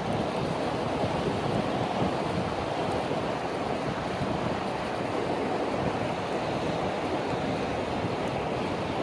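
Steady wind noise buffeting the microphone, with the rushing of river water underneath.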